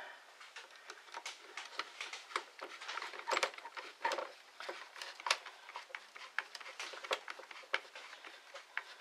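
Irregular small clicks, taps and rustles of hand-tool work on a cordless drill's plastic housing: a screwdriver driving the front nose-piece screws and the drill body being handled on the bench.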